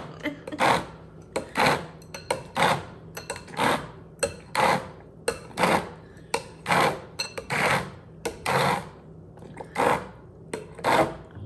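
Immersion blender running in a glass bowl, blending shrimp with milk and half-and-half, with a low steady motor tone and a loud splashing, clattering burst about once a second as it works through the mixture.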